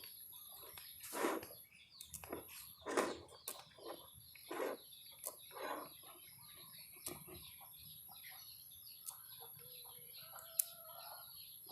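Chickens clucking in a series of short calls, with a few sharp clicks later on and a thin high tone in the background.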